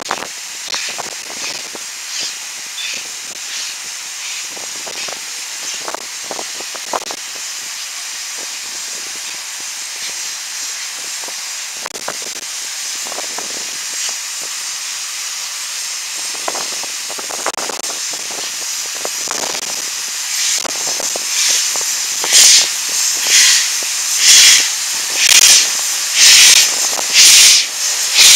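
Somerset & Dorset Joint Railway 7F 2-8-0 steam locomotive No. 53808 approaching under steam with its cylinder drain cocks open. A steady hiss grows louder and, in the last six seconds, turns into loud bursts of steam about once a second as it draws near.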